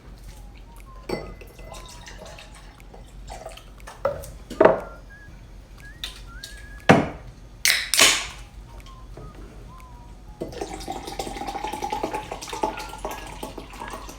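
Drinks being made up for somaek: several sharp clinks and knocks of bottles and glass, then, from about ten seconds in, a steady stream of liquid pouring into a glass.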